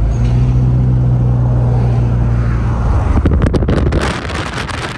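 Car interior driving noise: a steady low engine and road hum from the moving car, then, about three seconds in, gusty wind noise buffeting the microphone.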